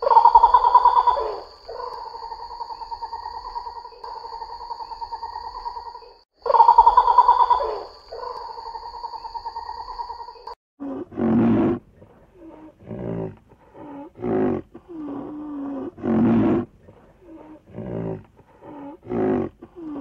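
Animal calls: a loud, drawn-out call that is heard twice, with a steady high whine behind it. These are followed by a run of shorter, lower calls, about one a second.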